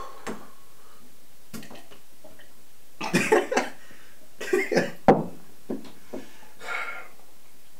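A man coughing and spluttering in harsh bouts, about three seconds in and again a second and a half later, after swallowing a vodka-heavy screwdriver, with a sharp knock just after and a smaller cough near the end.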